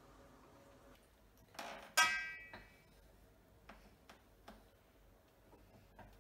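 A metal spoon strikes a stainless steel cooking pot about two seconds in, giving one sharp clank that rings briefly, followed by a few faint clicks of stirring.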